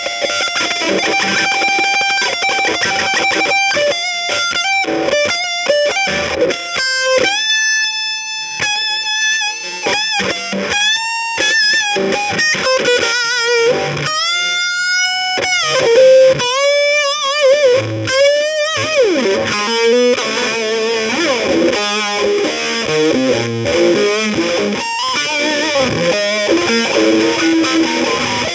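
Music: a lead melody of held notes that bend and waver in pitch, with faster runs in between and a long falling slide about two-thirds of the way through.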